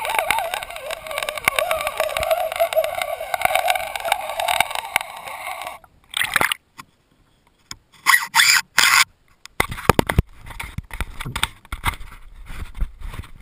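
Underwater sound heard through a GoPro's waterproof housing as it is pulled through the lake: a steady rush with a wavering tone, which cuts off sharply about six seconds in. After a near-silent gap come scrapes, knocks and rubbing as the housing is handled out of the water.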